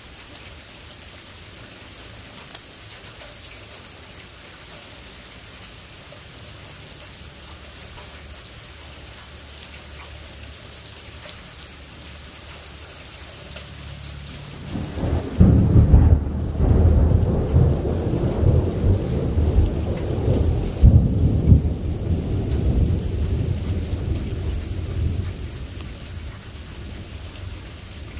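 Steady rain with a long roll of thunder: a low rumble swells about halfway through, turns loud about fifteen seconds in with a second peak some five seconds later, then rumbles away near the end.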